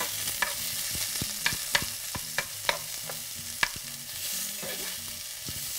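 Chopped vegetables, garlic and chili frying in hot coconut oil in a frying pan: a steady sizzle, with a utensil stirring and scraping in the pan and a dozen or so sharp clicks against it.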